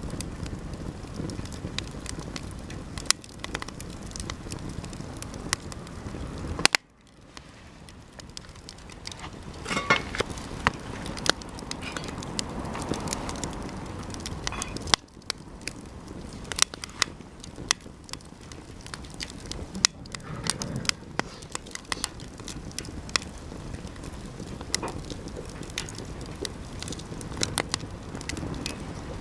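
Campfire of Japanese cedar (sugi) offcuts burning, with a steady rush of flame and many sharp crackles and pops. About seven seconds in, the sound drops away suddenly and swells back over a few seconds.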